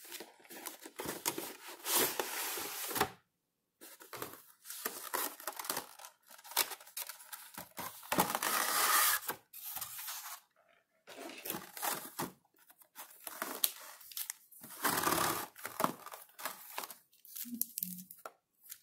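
Packaging of a trading card collection box being opened by hand: the clear plastic insert and cardboard rustle and crinkle in irregular bursts, with short pauses between them.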